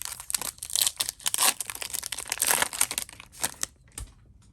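Wrapper of an Upper Deck MVP hockey card pack being torn open and crinkled by hand: a dense crackle for about three seconds, then a few light clicks.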